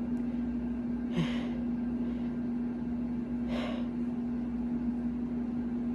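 A loud air-conditioning unit hums steadily, with two sharp pre-sneeze gasps, about a second in and again about two and a half seconds later.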